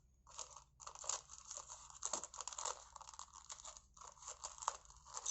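Thin plastic Lego parts bag crinkling in a dense run of irregular small crackles as it is handled and opened.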